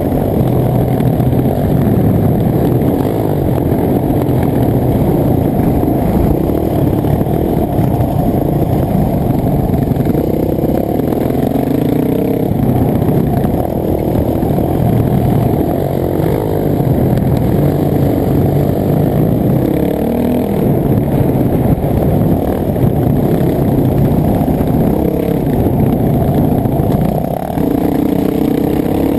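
Dirt bike engine running continuously under race throttle, its pitch rising and falling as the throttle opens and closes.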